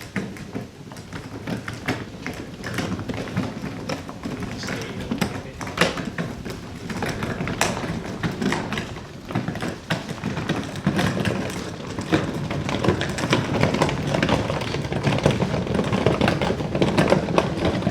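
Small wheels of a trolley under a heavy hot tub rolling over rough ground: a continuous rumble with irregular clicks, knocks and rattles, getting louder in the second half.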